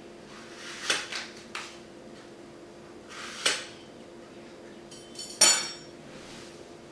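Table knife cutting dry floral foam and knocking on the countertop: a few sharp taps about a second in, a short scrape with a click mid-way, and a louder metallic clink a little after five seconds.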